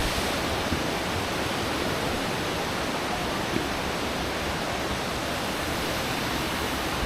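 Steady rushing of a waterfall, with a single sharp knock at the very start.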